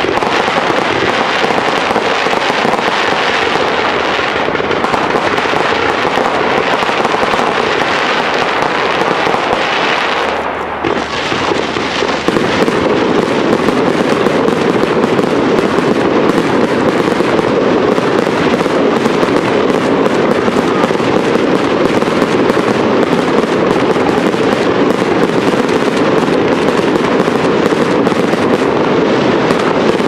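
Professional aerial fireworks display: a dense, continuous barrage of shell bursts and crackling, with a short lull about eleven seconds in before it picks up again.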